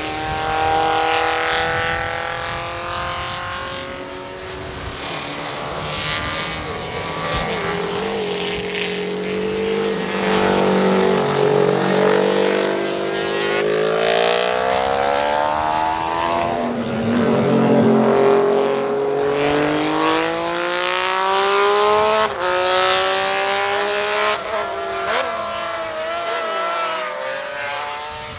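High-revving racing motorcycle engines accelerating hard past, the pitch climbing and then dropping back at each gear change, over and over; the sound switches abruptly about three quarters of the way through.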